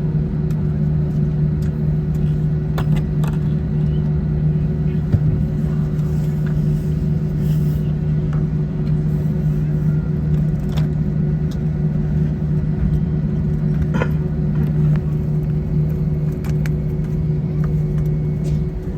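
Steady engine hum and rumble of an Airbus A321 airliner heard from inside the cabin while on the ground after landing, with a few light clicks; near the end the hum drops off and the level falls.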